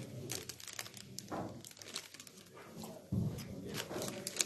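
Billiard balls clicking and knocking on a boccette table, with scattered sharp clicks and a dull thump about three seconds in.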